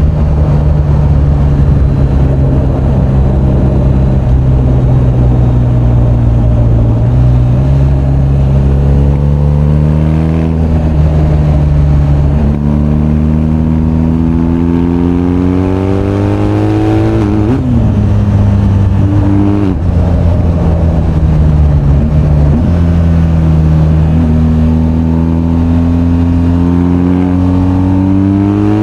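BMW R1250GS boxer-twin engine under way, its pitch climbing as the bike accelerates and dropping back at several gear changes, from about halfway through onwards.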